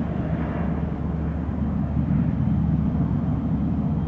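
Business jet's twin rear-mounted turbofan engines, a steady low rumble with a faint whine, as the jet rolls down the runway away from the listener.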